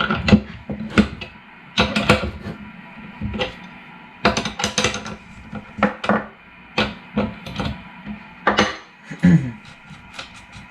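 Metal hand tools clinking and clanking on a car shifter assembly as a wrench turns a nut off its bolt while pliers hold the bolt: irregular sharp metallic clicks, several a second at times.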